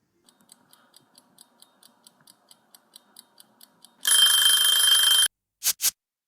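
A clock ticking quickly and faintly, about four or five ticks a second, then an alarm clock ringing loudly for just over a second, followed by two short bursts of ringing.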